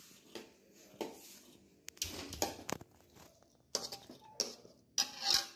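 A metal spoon clinking and scraping faintly in a wok of curry, in scattered short knocks.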